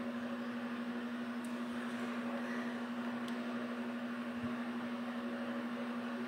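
Steady low electrical-sounding hum over a faint hiss, with two faint clicks about a second and a half and three seconds in.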